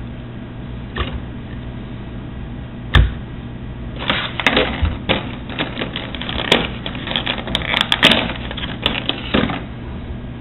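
Hard plastic being handled: a single knock about three seconds in, then about five seconds of quick irregular clicks and crackles, over a steady low hum.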